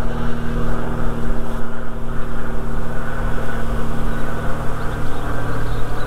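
Honeybee swarm buzzing in the air as it gathers at a swarm trap: a loud, steady hum.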